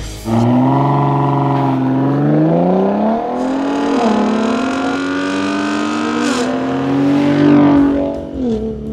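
2022 Ford F-150 Raptor's 3.5-litre twin-turbo EcoBoost V6 accelerating hard through the gears: the engine note climbs, dips twice as it upshifts, climbs again, then falls away near the end as it lets off.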